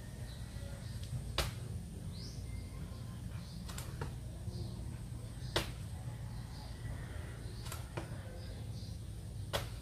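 Five sharp slaps of a person doing burpees, landing on the floor about every two seconds, over a steady low hum.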